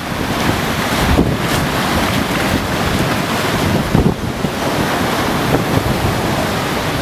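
Strong storm wind buffeting the microphone in uneven gusts, over a steady rush of heavy surf.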